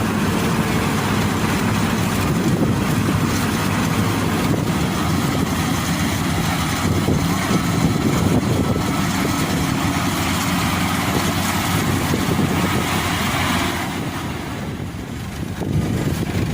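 Rice combine harvester running steadily at work, its engine rumble mixed with threshing noise; the sound dips for a moment near the end, then returns.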